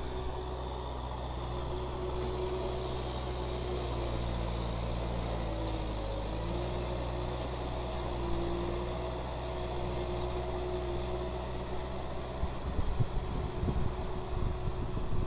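Kubota tractor's diesel engine running steadily while pulling a rotary tiller through a muddy paddy, its pitch dipping briefly about six seconds in. Wind buffets the microphone in the last few seconds.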